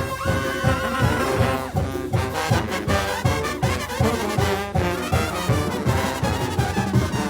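Live Mexican banda brass band playing: trumpets and trombones carry the tune over a steady low beat of tuba and drums, about three beats a second.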